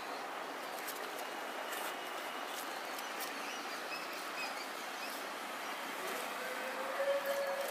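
Two cats fighting: faint scuffles and a low drawn-out yowl, rising slightly near the end, over a steady background hiss.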